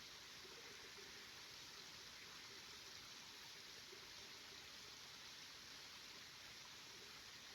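Near silence: the faint, steady rush of a small woodland stream.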